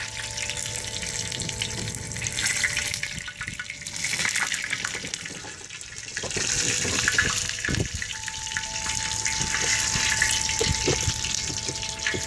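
Hot oil sizzling and crackling in a cast-iron kazan as lamb fat-tail fat renders in it. It is an even hiss with many small pops.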